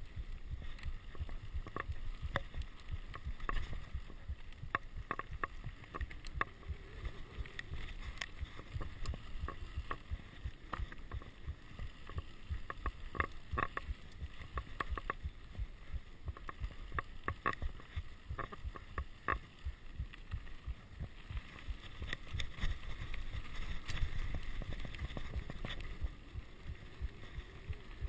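Mountain bike ridden fast down a rough dirt singletrack: a constant low rumble of wind and tyre noise on the camera microphone, broken by many short clicks and rattles as the bike jolts over bumps.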